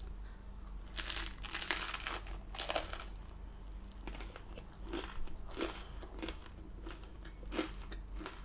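A person chewing food close to the microphone. There is a run of sharp, wet mouth clicks in the first three seconds, then softer, sparser chewing clicks.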